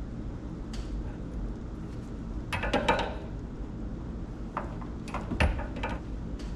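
Clicks and light metallic rattles from hands moving the corrugated flexible water lines and fittings on top of a water heater, in two short clusters about two and a half and five seconds in, over a steady low hum.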